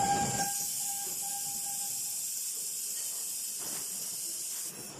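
Fiber laser welding machine with double wire feed at work: a steady high hiss of the weld, with a faint steady tone for the first two seconds. The hiss drops away just before the end.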